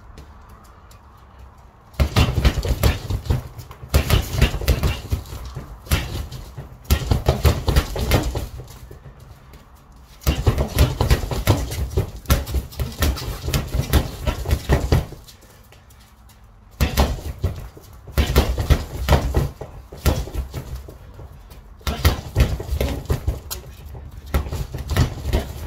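Boxing gloves punching an Everlast Powercore freestanding bag in combinations: rapid thuds, several a second, in about half a dozen flurries of one to five seconds with short pauses between. The first punches start about two seconds in.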